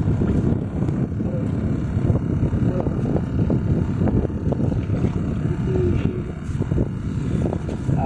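Strong gusty wind rumbling and buffeting on the microphone on an open boat over choppy water.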